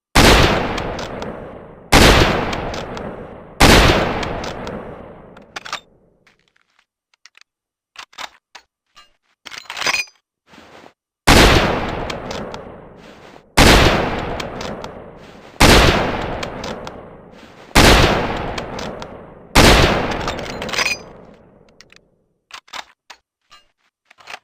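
Mosin-Nagant M38 carbine, a bolt-action rifle in 7.62x54R, firing eight shots, each with a long echoing tail: three about two seconds apart, a run of metallic clicks, then five more at the same pace, with more clicks near the end.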